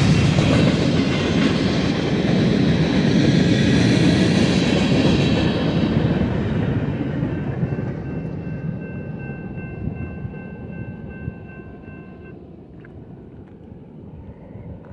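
Freight cars of a BNSF local train rolling past on the rails, a loud steady rumble that fades away as the last cars pass and the train moves off. A few steady high tones sound faintly in the second half and cut off suddenly about twelve seconds in.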